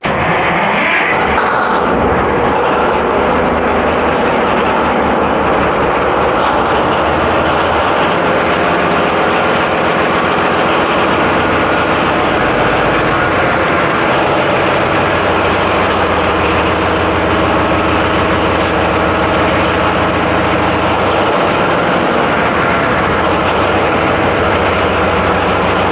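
Ship's machinery running: a loud, steady drone made of several even hum tones over a wide rushing noise, with no change in pace.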